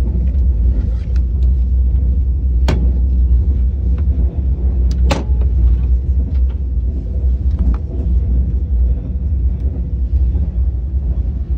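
Steady low rumble of a KTX high-speed train at speed, heard inside the passenger car. Two brief sharp clicks cut through it, about two and a half and five seconds in.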